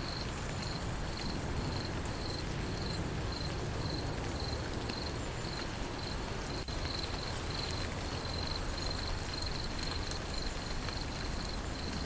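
Steady hiss of rainfall, with an insect chirping in a high, even pulse about twice a second over it.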